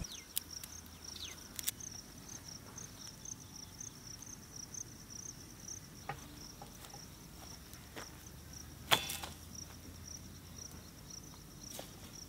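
A cricket chirping steadily, a high, evenly pulsed trill, with a few sharp clicks and one louder knock about nine seconds in.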